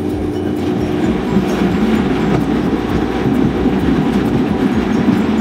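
Countertop blender running steadily at high speed, grinding whole tomatoes with no added water while a tamper pushes them down into the blades.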